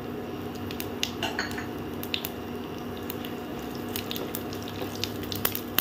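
Whole dried red chillies, cumin and fenugreek seeds sizzling in hot mustard oil for a tadka, with irregular small pops and crackles over a steady low hum.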